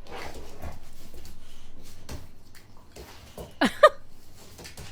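A dog in an animal video clip: a noisy stretch, then two short, loud, sharp vocal sounds in quick succession about three and a half seconds in.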